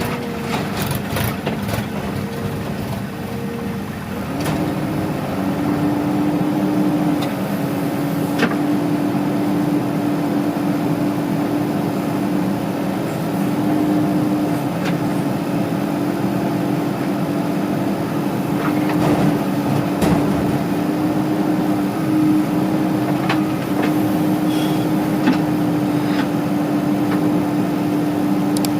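Engine of working earthmoving machinery running steadily. Its note rises and gets louder about four seconds in and then holds, with scattered short knocks and clicks over it.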